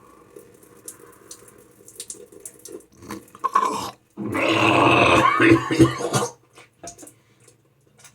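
Water bubbling and dripping at a low level, then a loud burst of noise lasting about two seconds from about four seconds in, followed by a few short clicks.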